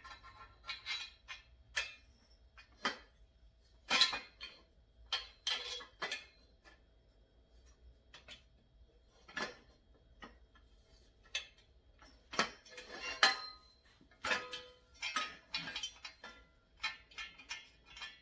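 Bolts, hex nuts and steel stand legs clinking and knocking together as they are fitted loosely by hand, in irregular sharp metallic clicks, some with a short ring.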